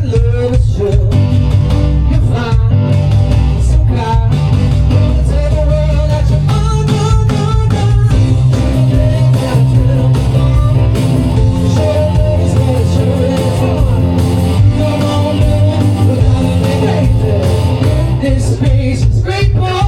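A live rock and roll band playing through a PA, with bass, drums and electric guitar under some singing, as part of a sound check.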